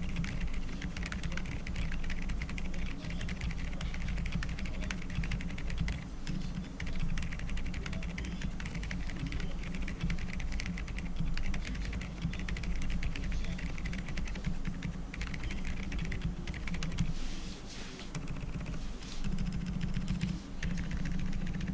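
Fast continuous typing on a QK75 mechanical keyboard fitted with lubed Outemu Peach silent linear switches, a PC plate and cherry-profile PBT keycaps. The keystrokes come in a dense stream that thins out briefly near the end.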